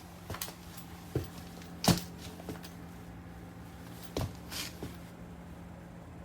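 A handful of short knocks and clicks, about seven scattered through the few seconds and the loudest about two seconds in, over a steady low hum.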